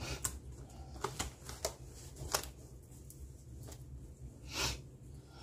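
Sheets of paper rustling and being shuffled by hand, with a few light clicks and one louder rustle about four and a half seconds in.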